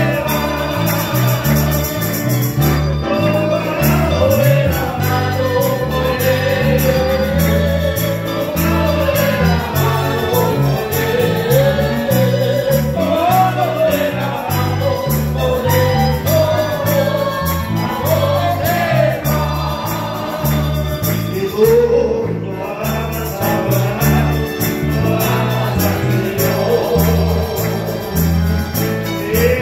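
Congregation singing a Spanish-language praise hymn together, accompanied by acoustic guitars and an accordion over a steady, rhythmic bass line.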